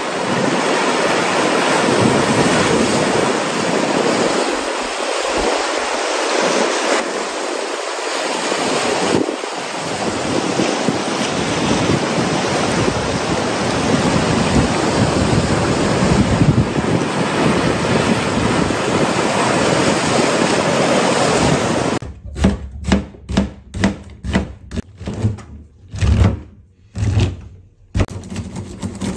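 Sea waves breaking and washing over a rocky shore, a steady surging rush for about twenty seconds. It cuts off suddenly to a kitchen knife chopping mushrooms on a cutting board, sharp knocks about two a second.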